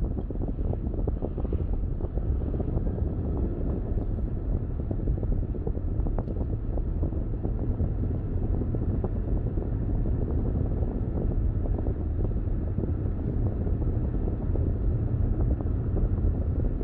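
Steady low rumble of a car driving: tyre and road noise mixed with wind noise.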